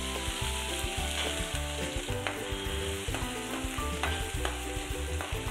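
Grated ginger sizzling as it fries in hot sesame oil in a steel pan, with a few sharp clicks about halfway through.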